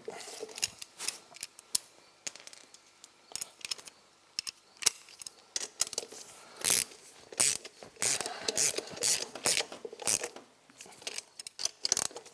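Hand ratchet wrench clicking in short, irregular spurts, with clinks of metal tools and parts, as a wheel is fastened onto a Honda three-wheeler's hub.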